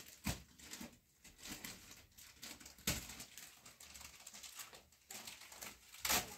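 Light rustling with a few soft clicks and knocks from small objects being handled; the loudest knocks fall about 3 seconds in and near the end.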